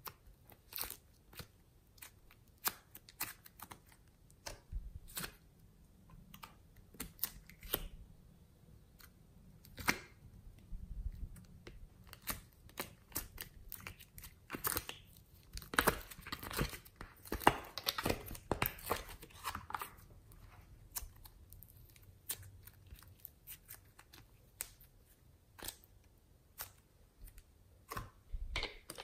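Soft modelling clay being pressed and peeled out of thin plastic moulds: irregular crackling and clicking of the flexing plastic with soft tearing of the clay, thickest around the middle.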